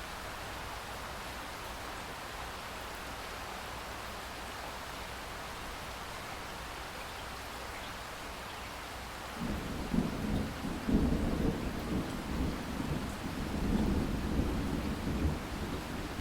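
Steady rain falling, and about halfway through a long rumble of thunder starts suddenly and rolls on, swelling and fading, to the end.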